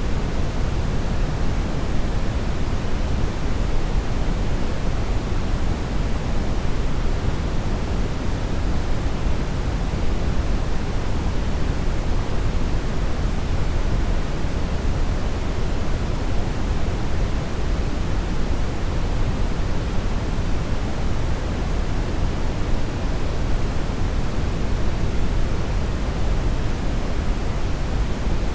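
Brown noise: a steady, unchanging hiss-like rush, strongest in the low end and much softer in the highs.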